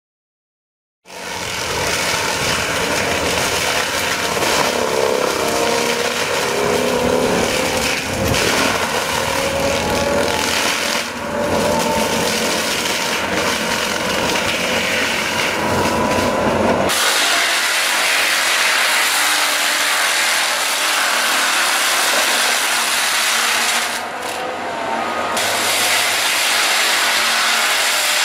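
Heavy machinery cutting or grinding wood: a loud, steady mix of engine and cutting noise that starts about a second in. About two-thirds of the way through it changes abruptly to a hissier grinding with little low rumble.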